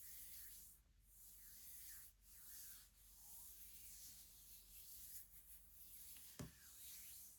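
Soft rubbing strokes over a surface, a run of short swishes each under a second long, with one light knock about six seconds in.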